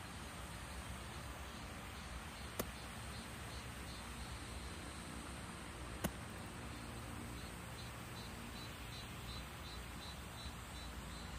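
Outdoor background hiss with insects chirping faintly in an even, rapid pulse. Two sharp clicks sound about three and a half seconds apart, the second one louder.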